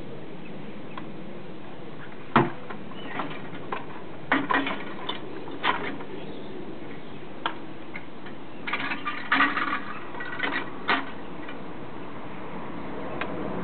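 Sharp metal knocks and clicks as a folding wheelchair is handled at a rooftop hoist arm and opened out. A single loud knock comes about two seconds in, then scattered clusters of rattling clicks, over a steady background hiss.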